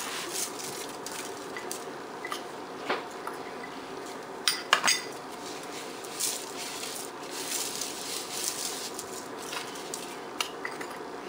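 Aluminium foil lining a baking pan crinkling and rustling under gloved hands as dry seasoning is rubbed into a raw chuck roast, with a few sharp clinks about three and five seconds in.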